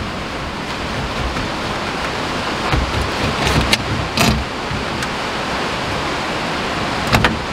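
Gauge cluster being worked loose from a 1972 Chevy C10's metal dash: a few short clicks and knocks, over a steady rushing noise.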